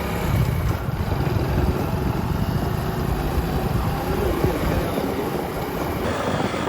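Small Hero motorcycle being ridden, its engine running under a dense, uneven low rumble of road and wind noise.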